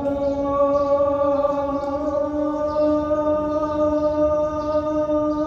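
Muezzin's call to prayer (adhan), one long held note at the drawn-out end of a line of the shahada.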